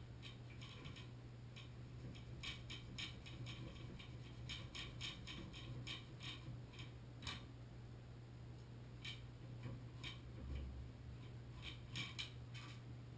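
A metal hand tool working inside a Moen Posi-Temp shower valve body gives short runs of quick metallic clicks, a few times over, against a steady low hum.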